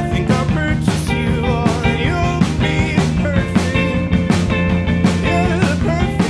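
Rock band playing an instrumental passage: a drum kit with regular cymbal and drum hits under electric guitar lines.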